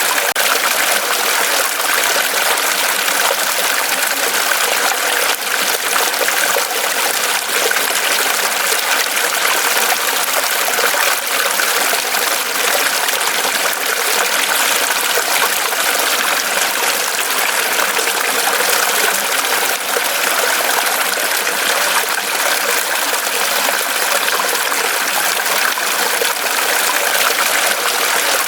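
Mountain stream running over rocks, a steady, dense rush and babble of water.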